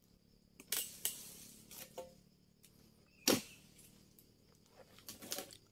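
Sharp knocks of a dodos, a steel chisel on a long pole, chopping at an oil palm's crown: about five strikes at uneven intervals, the loudest about three seconds in.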